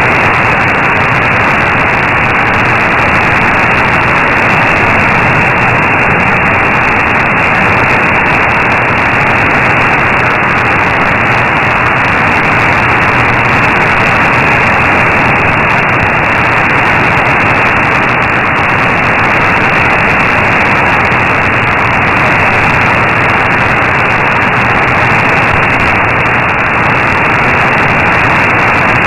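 Shortwave receiver in AM mode tuned to 15476 kHz, giving a steady, dull hiss of static with no speech or music coming through: the weak signal of LRA 36 is buried in the noise.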